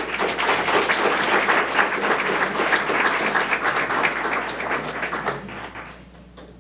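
Audience applauding: many hands clapping at once, starting suddenly and dying away near the end.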